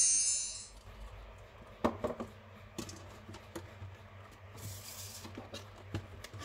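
A short, high, glittering sound effect ends within the first second. Then come light knocks and taps of a cardboard box and a tin container being handled, with a brief papery rustle about halfway through.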